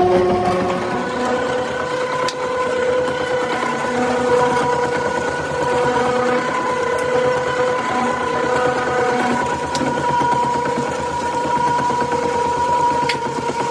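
Rubber kneading mixer running steadily, a constant mechanical whine from its drive while the rotors churn a mass of rubber compound, with a few sharp ticks.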